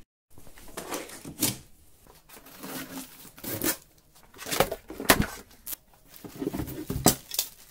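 A large cardboard box being unpacked by hand: cardboard flaps and plastic wrap rustling, scraping and tearing, with several sharp clicks and knocks at irregular moments.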